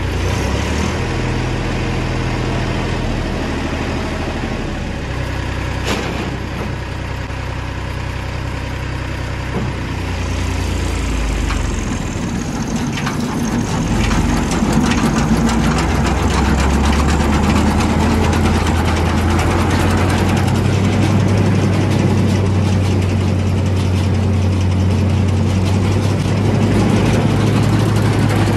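Massey Ferguson tractor engine running and driving a KS Group 756 straw reaper through the PTO. About 14 seconds in the sound grows louder and then holds steady, as the engine and the reaper's drive speed up.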